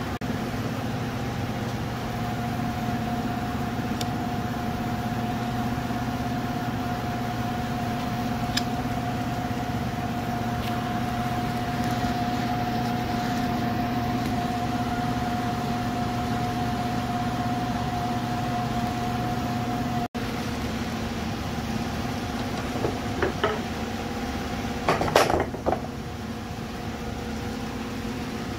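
Steady mechanical hum with a constant pitch. A few sharp clicks and a short clatter come near the end.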